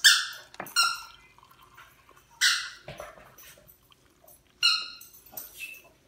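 A small dog yipping: four or five short, high-pitched yips, spaced a second or two apart.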